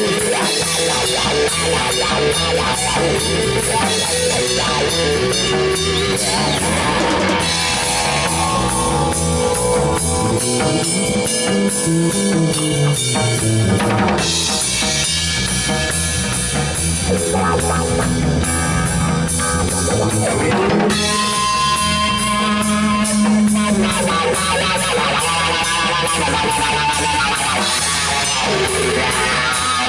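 Live rock band playing a song: a Pearl drum kit keeping a steady beat under electric bass and electric guitar.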